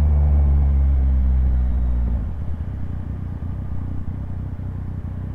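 Motorcycle engine running at a steady speed on the road, a low even engine note over wind and road rumble. The engine note drops away about two seconds in, leaving only the low rumble of wind and road.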